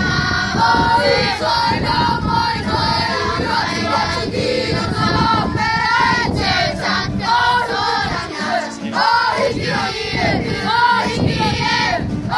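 Kapa haka group of children singing a Māori song together as a choir, with acoustic guitar accompaniment.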